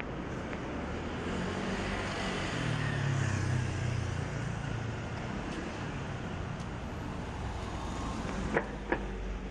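A motor vehicle's engine running close by, swelling louder for a couple of seconds and then easing off, over traffic hum. Two sharp clicks come near the end.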